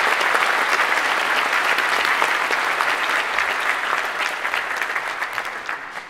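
Audience applauding, a dense patter of many hands that thins out and dies away near the end.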